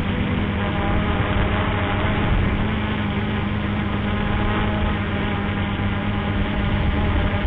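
Quadcopter's electric motors and propellers giving a steady hum, picked up by the camera mounted on the drone.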